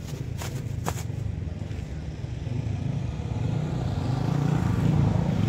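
A motor vehicle's engine rumbling past, growing louder through the second half. A couple of sharp crackles near the start as a thin plastic bag is shaken open.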